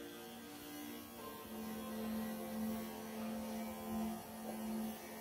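Electric pet clippers running with a steady hum, the tone shifting lower and growing louder about a second and a half in.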